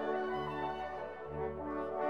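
Background music: slow, held notes that change about once a second.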